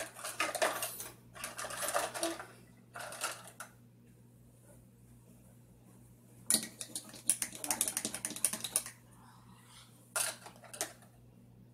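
Plastic play-kitchen dishes and utensils clattering in several short bursts of rapid clicking, with quiet gaps between.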